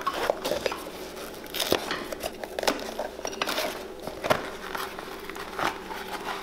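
Small knife blade cutting and scraping along the edge of a worn leather boot insole to free it: irregular scratchy clicks, snaps and tearing.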